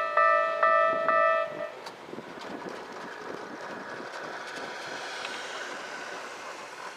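Railway level-crossing warning bell dinging about twice a second, stopping about a second and a half in. After it a steady rushing noise swells a little and fades near the end.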